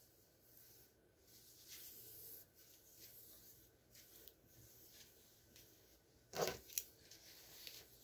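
Faint rustling of hands running through long hair. A brief knock about six seconds in is the loudest sound, followed by a small click.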